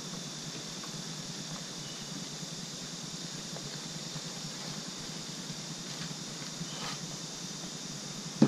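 Steady background hiss and low hum, with a faint rustle about seven seconds in; near the end a single sharp knock as the emptied cardboard cake-mix box is set down on the table.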